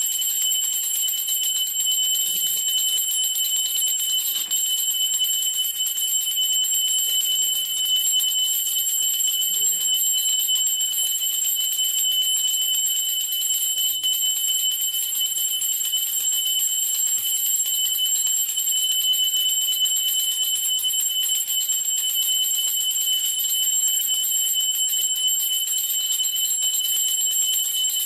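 Puja hand bell rung continuously, a steady high-pitched ringing with a fast, even flutter that runs on without a break.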